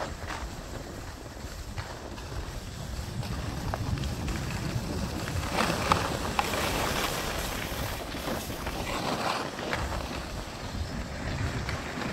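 Wind buffeting the microphone of a camera moving downhill, with the hiss of board or ski edges scraping over packed snow; the scraping swells twice, a few seconds apart, past the middle.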